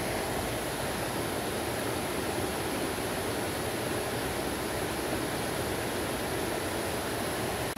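Steady rushing of river water running over rocks.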